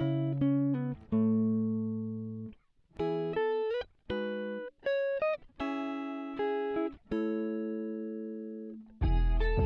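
Background music: a clean plucked guitar melody, single notes and short phrases that ring and fade with brief gaps, a few sliding up in pitch. About nine seconds in, a fuller, louder part with deep bass comes in.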